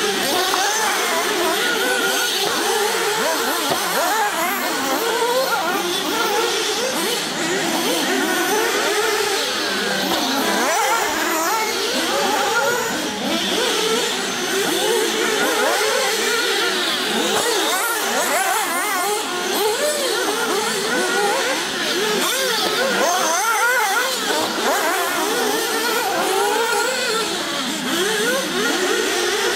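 Several 1/8-scale nitro RC buggy engines racing at once, their overlapping notes rising and falling without a break as they rev up and back off around the track.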